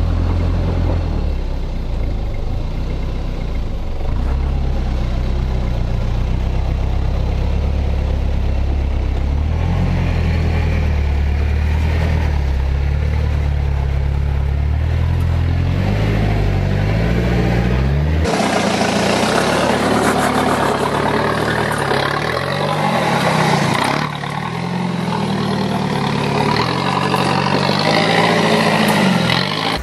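Toyota Hilux's 3.0-litre turbo diesel engine working at low speed as the truck crawls over rock ledges, its revs rising and falling. A little over halfway through the sound changes abruptly to a closer, brighter take of the engine with higher-pitched running.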